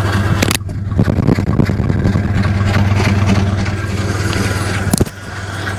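Dodge Dakota 3.9-litre V6 idling with a steady low hum, broken by two sharp pops, about half a second in and near the end. The pops fit the misfire and idle backfiring that the owner is chasing and that new O2 sensors have not cured.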